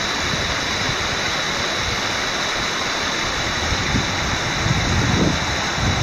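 Mountain brook rushing over granite ledges in a small cascade, a steady, even roar of water.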